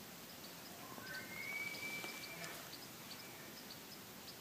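Faint bull elk bugle: one call that climbs and then holds a high whistle for about a second and a half before it fades.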